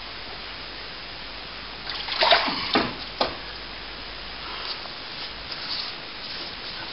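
Water splashing and sloshing as a brush is worked in a container of water to wet down plaster, a few short splashes and knocks about two to three seconds in and fainter ones later, over a steady hiss.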